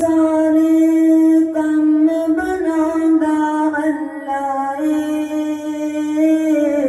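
A boy's voice singing a Punjabi naat unaccompanied, holding long drawn-out notes that slide gently from one pitch to the next.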